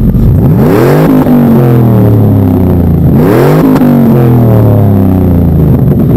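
2000 Dodge Dakota's 4.7-litre Magnum V8 blipped twice from idle through a stainless dual catback exhaust with a Full Boar muffler. Each blip rises in pitch quickly, then the engine falls back slowly toward idle.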